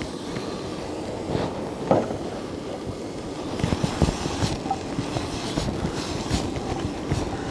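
Chopped garlic and red onion sizzling in hot olive oil in a wok on a gas camp-stove burner, over a steady low rush. The crackling gets denser from about three and a half seconds in as the wok is shaken.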